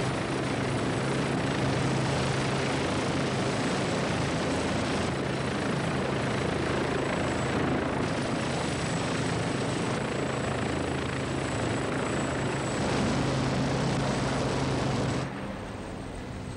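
Westland Wasp helicopter running with engine and rotors turning, a steady loud mechanical din with a thin high whine above it. The sound drops sharply to a much quieter level about fifteen seconds in.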